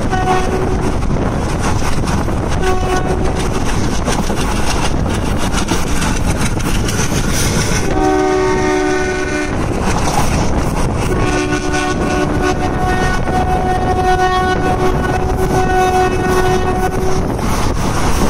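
Indian Railways express coach running at speed, heard through an open window: a steady loud rumble and clickety-clack of the wheels on the rails. A locomotive horn sounds over it, with two short blasts early on, a longer blast about eight seconds in, and a long held blast of about six seconds in the second half.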